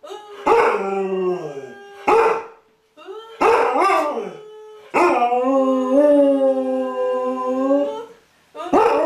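A puppy howling: a few short yelping howls that slide in pitch, then one long, steady howl of about three seconds, with a new howl starting near the end.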